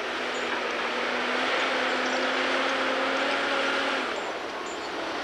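Timberjack skidder's diesel engine working hard as the machine drives, its pitch rising a little, then easing off briefly about four seconds in.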